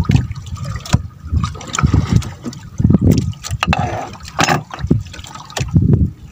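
Water sloshing and splashing in irregular surges, with scattered sharp knocks and clicks.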